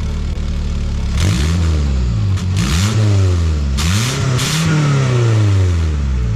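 Toyota Camry engine running just after a cold start and being revved several times, its pitch climbing and falling back, with a new muffler donut gasket fitted to cure a leak in the rear exhaust.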